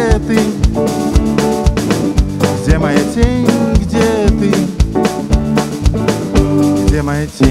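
Live band playing an instrumental passage: a lead line with bending notes over electric guitar and keyboards, driven by a steady beat on an electronic drum kit. The music dips briefly about seven seconds in, then comes back with a loud hit.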